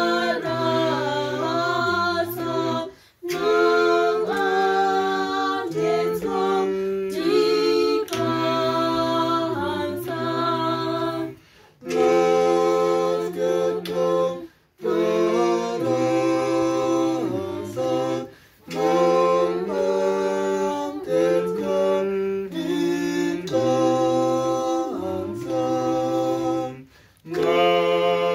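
Choir of several voice parts singing a cappella in harmony, low bass voices under higher parts, in phrases a few seconds long with short breaks between them.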